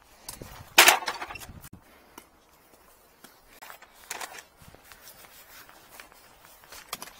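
An aluminium tool case being carried and set down on asphalt. There is a loud clatter about a second in and a smaller one around four seconds, with footsteps and small clicks of the case's metal fittings in between.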